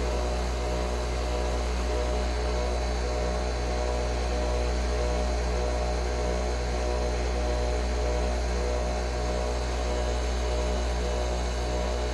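Nespresso Vertuo Pop+ capsule machine running a brew cycle: a steady mechanical hum with a faint, even pulsing underneath.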